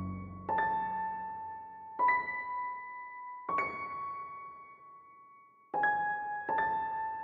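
Background music: a slow piano melody of single high notes, struck about every second and a half, each left ringing.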